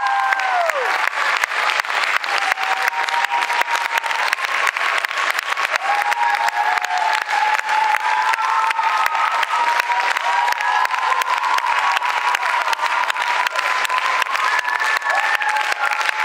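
Theatre audience applauding steadily, a dense run of clapping with cheering calls over it.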